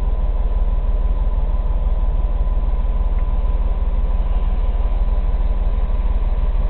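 Semi-truck diesel engine idling steadily, a low even rumble heard from inside the cab, with a faint thin high tone running alongside it.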